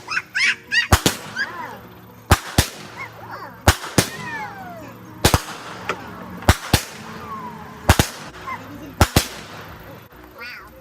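Fireworks going off: a string of sharp pops and bangs, often in quick pairs, about one burst every second.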